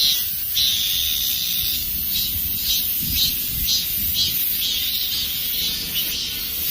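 Chorus of dozens of cicadas calling in a tree: a steady high buzz under repeated pulsing calls about twice a second, with one longer held call near the start.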